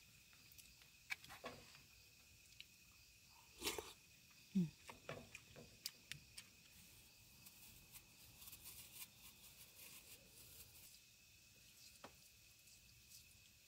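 Mostly quiet, with scattered soft clicks and taps from a wooden spoon in a disposable bowl and quiet eating sounds. A short falling sound about four and a half seconds in is the loudest. A faint steady high tone runs underneath.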